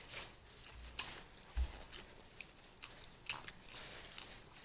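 Faint, close-miked chewing and mouth sounds of someone eating seafood boil, with a few sharp short clicks and a brief low thump about a second and a half in.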